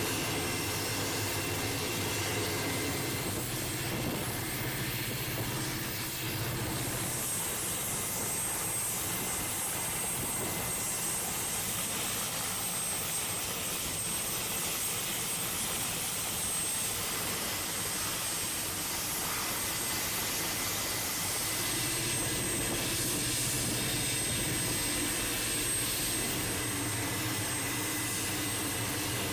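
Fire Scout unmanned helicopter running on deck with its rotors turning: a steady turboshaft engine and rotor noise with a thin high-pitched whine over it.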